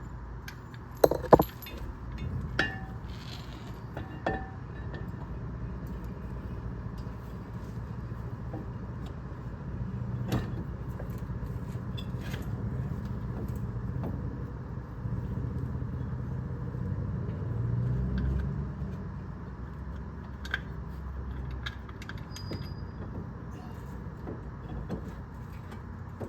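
Metal clinks and clanks of a brake caliper and tools being handled as the caliper is worked onto the rotor, loudest about a second in, over a steady low hum.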